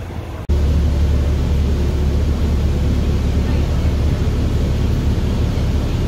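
Steady low rumble of a city bus in motion, engine and road noise heard from inside the passenger cabin. It starts suddenly about half a second in.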